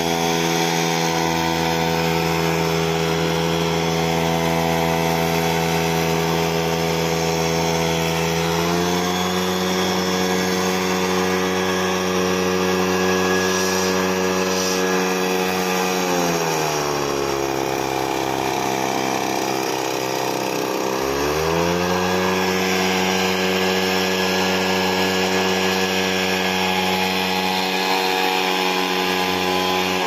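Backpack leaf blower's two-stroke engine running hard and blasting air. Its pitch rises about nine seconds in, drops to a lower speed for about five seconds midway, climbs back up, then falls away near the end as the throttle is worked.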